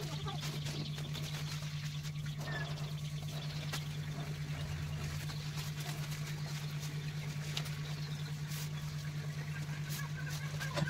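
A steady low hum with a slight regular pulsing in loudness, under faint rustles and light taps of paper being handled on a wooden board.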